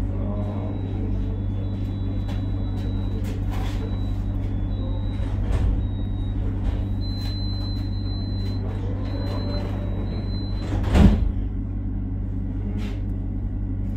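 Tram standing at a stop, its electrical equipment humming steadily, with a thin high whistle that shifts in pitch in steps. A single sharp clunk about eleven seconds in is the loudest sound.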